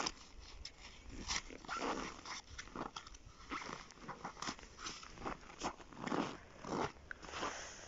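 Tent fabric rustling and packed snow crunching under boots in irregular bursts, as a folded PolarBird Family TF pop-up ice-fishing tent is pulled open.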